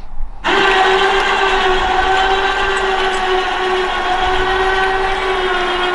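Electric winch motor switched on about half a second in and running steadily with a high whine whose pitch sags slightly as it hauls a load.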